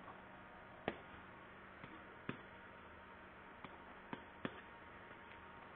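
Faint, irregular clicks, about half a dozen, the sharpest about a second in, over a quiet steady hum: the taps of a stylus on a pen tablet while handwriting on screen.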